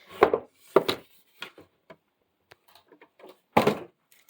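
Objects being handled: a series of separate knocks and clicks, about five in all, with a loud one shortly before the end.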